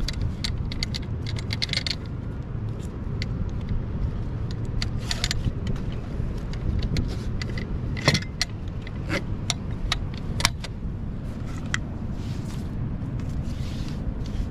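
Nylon strap webbing being threaded and pulled through a metal bracket, with scattered clinks and clicks of the metal buckle and stainless D-rings. The sharpest clicks come about 8 and 10½ seconds in, over a steady low rumble.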